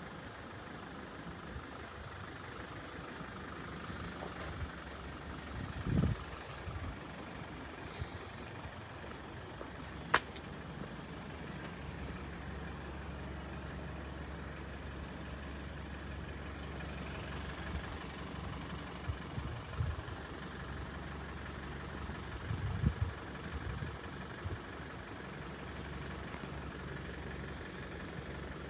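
A steady low engine hum, strongest through the middle, with a sharp click about a third of the way in and a few short low thumps.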